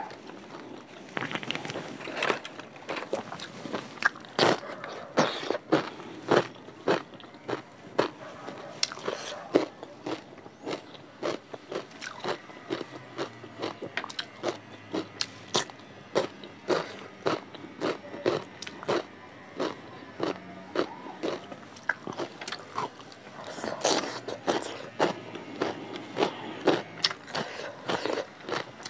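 A person eating rice, dal and vegetable curry with the hand: chewing and biting mouthfuls, with a steady run of sharp mouth clicks about twice a second.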